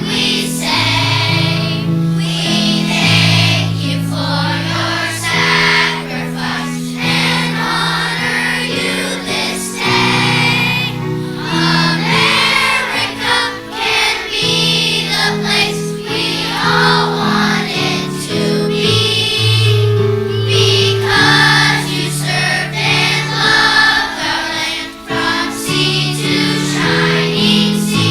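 A choir of third-grade children singing a song together over instrumental accompaniment.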